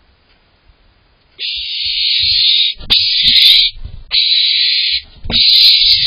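Barn owl calling: four harsh, hissing shrieks of about a second each, starting about a second and a half in, with short gaps between them.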